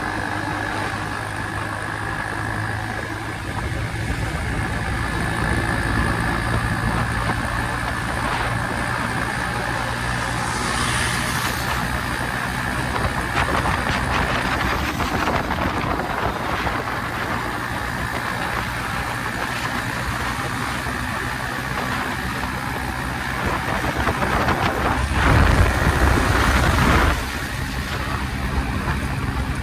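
Modified Hero Splendor's single-cylinder four-stroke engine running through an RX-style silencer with its baffle removed, giving a steady, loud exhaust note while riding. Near the end it gets louder for about two seconds, then settles back.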